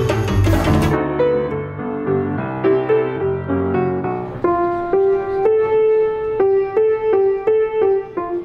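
Background music ends about a second in, then a piano plays solo: a slow line of single notes that settles into a repeated back-and-forth between two notes.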